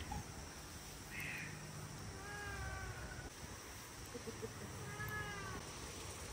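A cat meowing twice, each call about a second long with a rise and fall in pitch.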